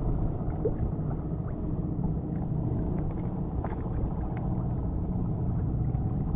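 Steady low rumble aboard a small outrigger fishing boat on open sea, with a few faint ticks.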